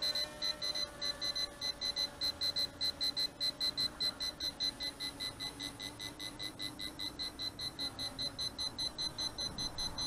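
Rapid, evenly repeated high-pitched beeping, about five beeps a second, from the KK13 Dragonfly drone's remote controller sounding a warning alarm in flight.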